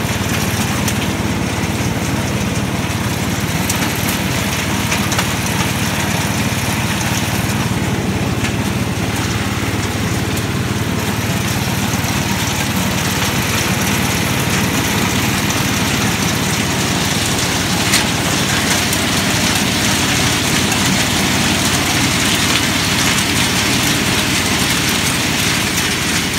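Hasatsan H 130 hazelnut harvester running steadily under its own engine while collecting in-shell hazelnuts into a burlap sack, with one sharp tick about two-thirds of the way in.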